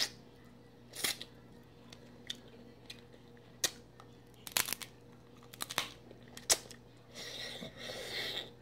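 Dungeness crab leg shells clicking and cracking as meat is picked out and eaten: about six short, sharp snaps spread out, then a crackling rustle near the end.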